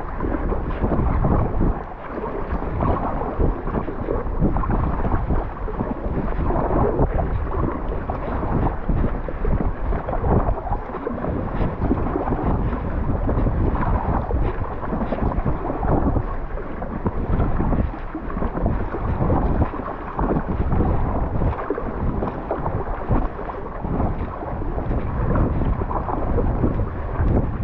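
Strong wind blowing across the microphone as a deep, uneven rumble, with water splashing and slapping around an Intex Challenger K1 inflatable kayak heading into the wind.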